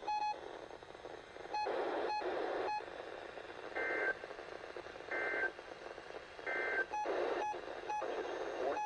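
NOAA Weather Radio sending its SAME end-of-message code after a required weekly test: three short bursts of warbling two-tone digital data, about a second and a half apart, over radio hiss. Short electronic beeps repeat throughout.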